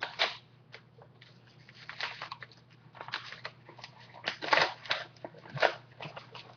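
A mail package being torn open and its paper or plastic wrapping handled: irregular crinkling and tearing, in short bursts with quiet gaps between.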